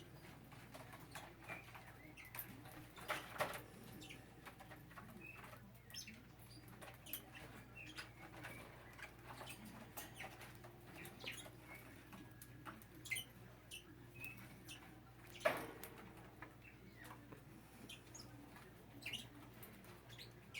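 Small caged parakeets moving about quietly: scattered soft chirps with light clicks, scratching and wing flutters on cage wire and perches. Two louder knocks come about three seconds in and about fifteen seconds in.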